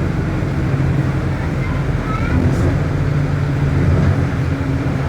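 MAN D0834 four-cylinder turbodiesel of a Volksbus 17.230 OD bus running steadily under way, with the drivetrain sound of a differential that the owner describes as growling.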